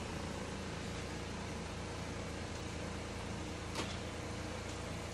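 A steady low hum and hiss of indoor background noise, like a fan or air handler running, with a single short click a little under four seconds in.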